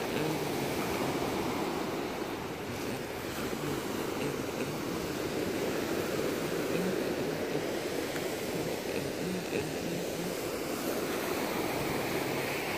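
Waves breaking and washing up a pebble and shell beach: a steady rush of surf.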